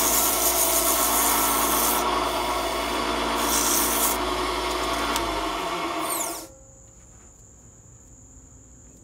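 Sandpaper rubbing against a wooden spinning-wheel bobbin turning on a wood lathe, over the lathe's steady hum. About six seconds in, the lathe stops and the sound drops away quickly, leaving a faint steady high tone.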